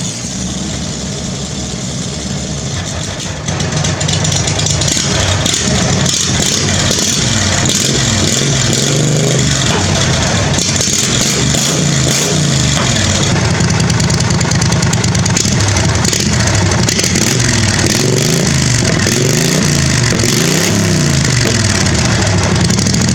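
Husqvarna zero-turn mower's Briggs & Stratton V-twin engine running loud through a custom open exhaust. It gets louder about three and a half seconds in, then its pitch rises and falls repeatedly.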